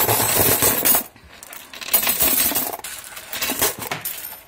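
Loose metal coins clinking and sliding against each other across a tabletop as they are swept together by hand, in several bursts with short pauses between.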